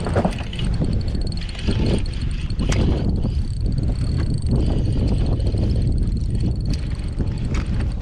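Wind buffeting the microphone on an open fishing boat, a steady low rumble with a few light clicks and knocks, and a faint steady high tone under it.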